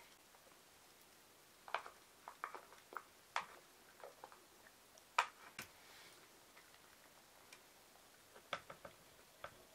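Scattered light clicks and clinks of ceramic: chopsticks tapping a small ceramic bowl while soy sauce and sake are stirred, then cut bamboo-shoot pieces tipped into the bowl. Another short run of knocks comes near the end as the bowl is handled.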